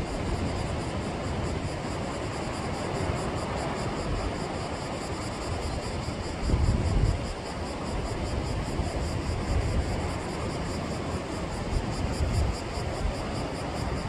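Sea surf washing steadily onto the shore, with gusts of wind buffeting the microphone, the strongest about halfway through.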